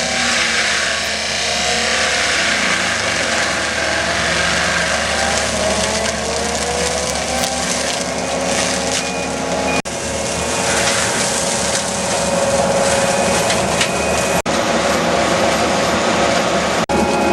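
Skid steer loader running a fixed-tooth rotor forestry mulcher, its engine and hydraulics under load as the rotor grinds wood and brush. The noise is loud and continuous, with a few sudden brief breaks.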